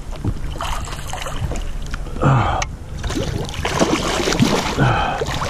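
Large Murray cod thrashing at the surface beside a kayak, water splashing in rushing spells. A person gasps or grunts twice with effort, about two and five seconds in.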